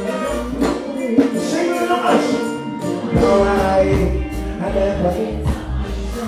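Live concert music: a man singing into a microphone over a band or backing track, with heavy bass that comes in strongly about halfway through.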